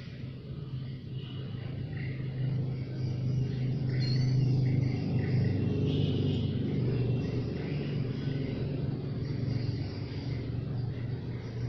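Engine drone of a passing motor vehicle, growing louder to a peak about four to six seconds in and then fading.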